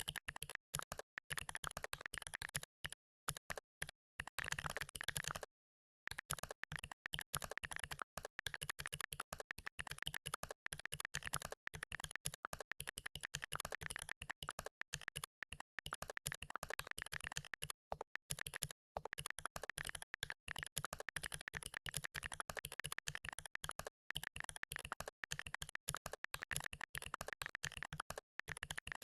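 Fast typing on a computer keyboard: a rapid, continuous run of key clicks, broken by a few short pauses, the longest about five seconds in.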